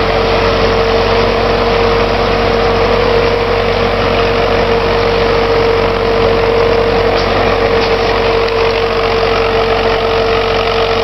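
MTZ-82 tractor's four-cylinder diesel engine running steadily as the tractor drives through deep snow, with a steady high whine over the engine note.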